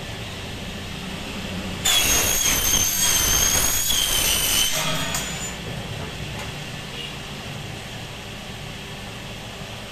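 Power saw cutting through an aluminium window section. A loud, high-pitched whine with a rasping noise starts suddenly about two seconds in, lasts about three seconds, then dies away over the next second.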